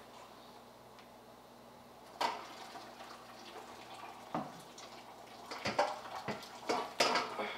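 Water splashing and dripping as a boiled whole duck is lifted out of a large aluminium stockpot, with knocks and clinks of a utensil against the pot and bowl. Quiet at first, a knock about two seconds in, then splashing and clatter through the last few seconds.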